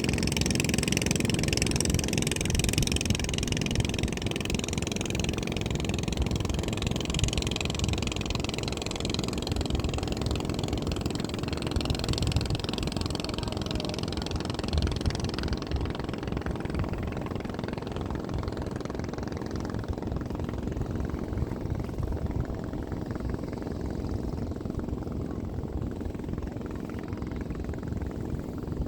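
Boat engine running steadily with a low rumble. Its higher sound fades away about halfway through, as if the boat were drawing off.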